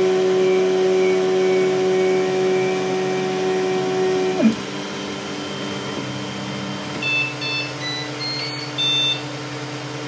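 Flashforge Creator Pro 3D printer's stepper motors whining at one steady pitch for about four seconds, then sliding down in pitch and stopping, with a lower hum carrying on. In the last few seconds the printer plays a run of short high beeps, the signal that the print has finished.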